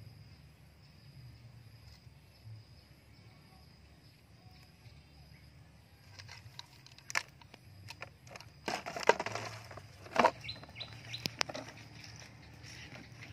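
Rustling and scuffing on dry leaf litter with scattered sharp clicks as someone gets up and moves about. It begins about six seconds in and is loudest around nine to ten seconds in, after a stretch where only a faint steady high tone sounds.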